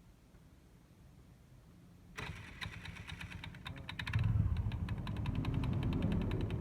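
TVS Jupiter scooter's single-cylinder engine being started, about two seconds in, and catching about two seconds later, then running with a fast, regular khat-khat knocking from the open CVT, a noise the mechanic later puts down to worn variator rollers and a loose bush.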